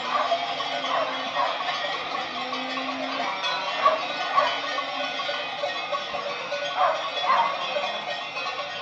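Many cowbells worn by a herd of cows on the move, clanging together in a dense, continuous jangle, with louder single strikes standing out here and there as bells pass close by.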